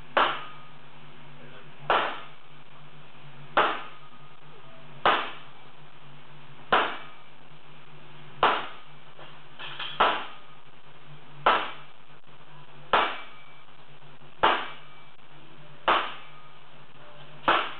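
Sledgehammer blows on glowing-hot wrought iron during the forging of an anvil, a sharp strike about every second and a half, twelve in all, each dying away quickly. A steady low hum runs underneath.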